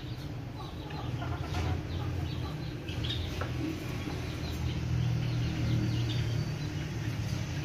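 Chickens clucking and birds calling in short, scattered notes over a steady low rumble, which grows louder about five seconds in.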